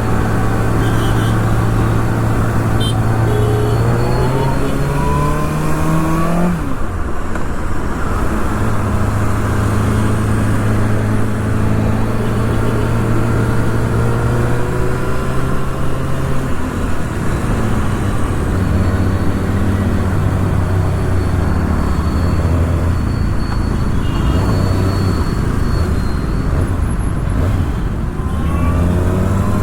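Kawasaki ZX-6R's inline-four engine under way. The revs climb for a couple of seconds, fall sharply at a gear change about six seconds in, hold steady for a stretch, settle lower, then climb again near the end.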